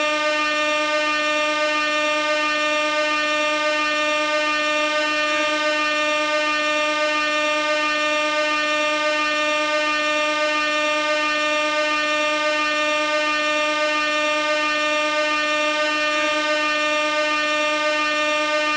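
Compressed-gas air horn sounding one unbroken blast at a single steady pitch with a rich stack of overtones, holding an even level throughout.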